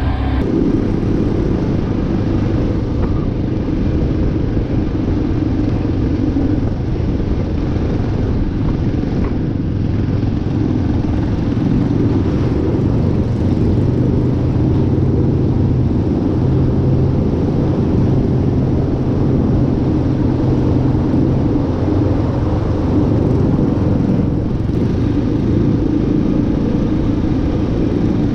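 ATV engine running steadily while riding along a dirt trail, with small rises and falls in pitch.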